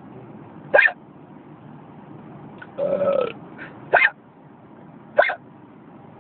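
A person hiccuping: three short, sharp hiccups, the first about a second in and the last two about a second apart, with a longer half-second voice sound between the first two. Under them runs the steady noise of the car cabin.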